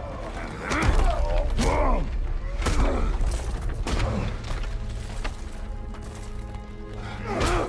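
Film soundtrack of a brutal hand-to-hand fight: a low, sustained musical score under strained grunts and cries from the fighters, about five of them, with heavy thuds and crashes.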